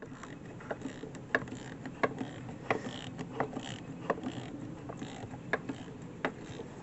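Hand tools working on a jet ski's jet pump housing: sharp metallic clicks at an even pace of about one every 0.7 seconds over a low steady background.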